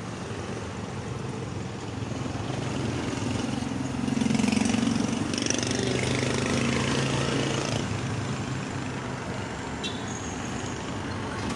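Street traffic passing by: a steady rush of engines and tyres, with a heavier vehicle's engine growing louder about four seconds in and fading after about eight seconds.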